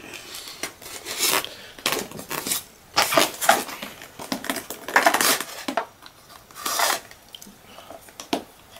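Scissors cutting the tape on a polystyrene foam shipping case: a run of irregular sharp snips and scrapes of the blades against the tape and foam.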